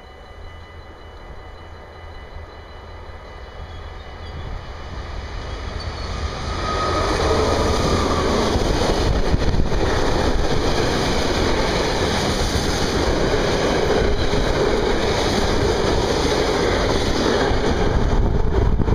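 Class 6400 diesel-electric freight locomotive growing louder as it approaches, then passing. A long train of loaded steel-carrying freight wagons follows with a heavy, steady rumble and clatter of wheels on the rails.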